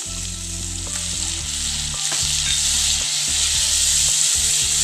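A splash of water hitting hot oil with browned onions and spices in a wok, sizzling hard while a wooden spatula stirs through it. The sizzle grows louder about two seconds in.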